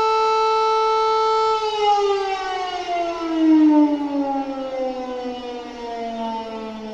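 Air-raid siren sounding a steady tone, then winding down, its pitch falling slowly through the last few seconds. It is the sound of an air-raid alert.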